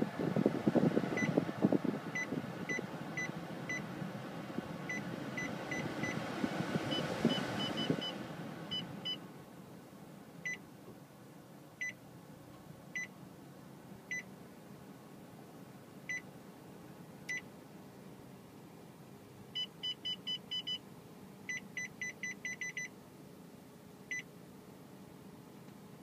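Touch-panel automatic climate control of a Mitsubishi eK Wagon beeping at each touch, sometimes once and sometimes in quick runs of beeps, at two pitches. For the first eight seconds or so the A/C blower runs at high fan speed, then it drops to a low hum as the fan is turned down.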